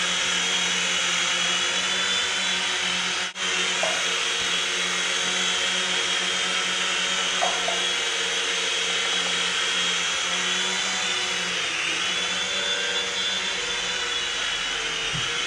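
Tiny electric motors and twin rotors of a Syma S026G Mini Chinook toy RC helicopter whining steadily in flight, with the pitch wavering slightly near the end. There is a brief break in the sound about three seconds in.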